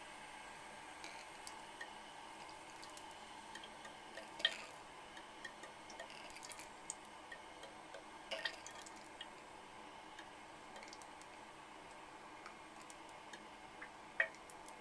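Water dripping from a 1962-1968 American Standard Cadet toilet tank: faint, irregular small drips over a soft hiss, with three sharper drops, about four, eight and fourteen seconds in. It may be a slight leak.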